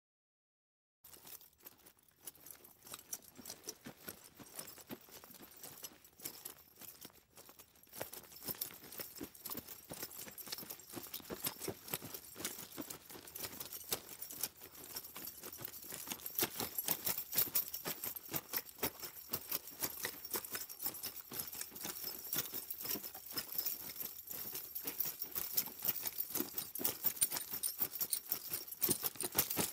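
Horse bridle in motion, its metal fittings jingling and clinking in a steady run of small rattles that start about a second in and grow louder about eight seconds in and again past halfway.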